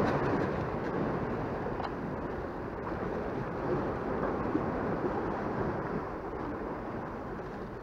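Sea waves surging and washing against a rocky seawall, a steady rushing surf that slowly eases off.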